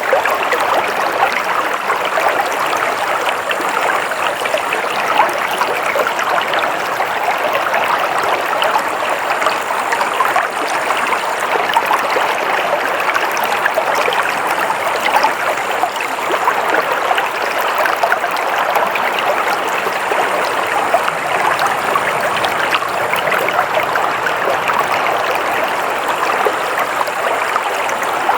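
Water flowing steadily in a stream, a continuous rushing and trickling with fine splashing texture.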